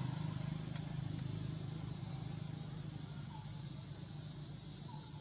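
An engine running nearby, a low hum with a fast pulse that slowly fades away.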